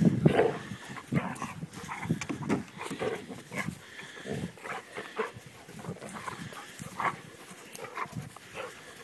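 A dog making short, irregular sounds, a few each second, loudest at the very start.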